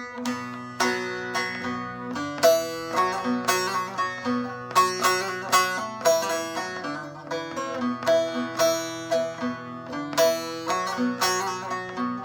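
Instrumental music: a melody picked on a plucked string instrument in quick, sharply struck notes over low sustained bass tones, with no singing.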